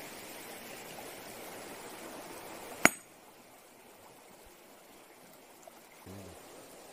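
One sharp, ringing clink of a sledgehammer's steel head striking a large rock in a shallow stream about three seconds in, over the steady rush of flowing water. The blow is meant to stun fish hiding under the rock.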